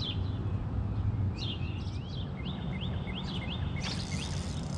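Songbirds chirping, with a quick run of short rising notes in the middle, over a steady low outdoor rumble. A brief hiss comes about four seconds in.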